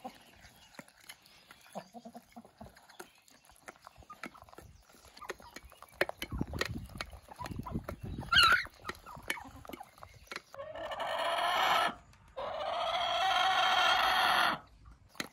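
Chickens' beaks tapping and pecking against an enamel feeding plate as they eat worms, with a short call about eight seconds in. Near the end a rooster crows twice, the second crow longer.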